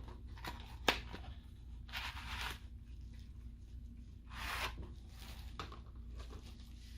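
Packaging being handled and opened while unpacking a refurbished phone screen: a sharp click about a second in, then short rustling, tearing sounds about two and four and a half seconds in.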